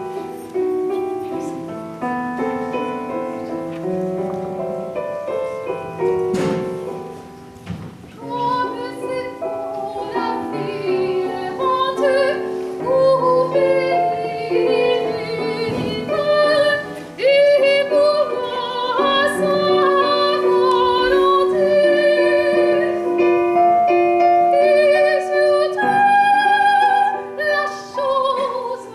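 Operatic singing with piano accompaniment. Piano notes alone at first, then about a quarter of the way in a woman's voice comes in with strong vibrato over the piano and the music grows louder.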